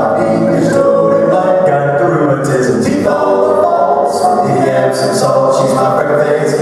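Male vocal quartet singing a cappella in close four-part harmony, holding chords that move from note to note.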